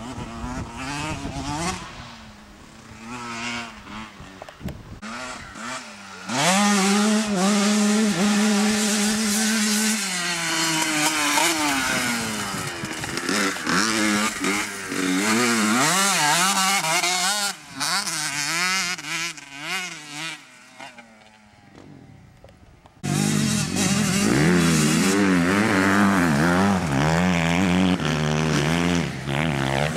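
Motocross dirt bike engines revving hard, the pitch rising and falling with throttle and gear changes through turns. The engine noise jumps suddenly loud about six seconds in, dies back about two-thirds of the way through, then comes back loud abruptly near the end.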